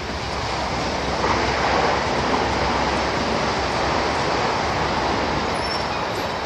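Bogie hopper wagons of a freight train rolling past: a steady rumble and rattle of wheels on rail that swells about a second in.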